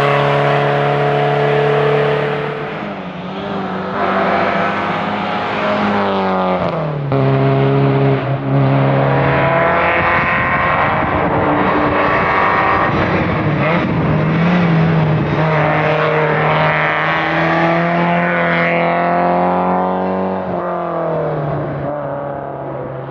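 Porsche 944's inline four-cylinder engine running hard under race conditions, holding steady revs for stretches with several drops and rises in pitch as it shifts and changes speed, fading out near the end.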